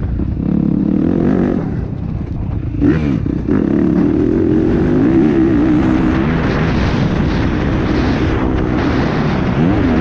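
Dirt bike engine ridden on a motocross track, revving up and down through the gears. The revs ease off about a second and a half in, then climb sharply just before the third second and keep rising and falling after that.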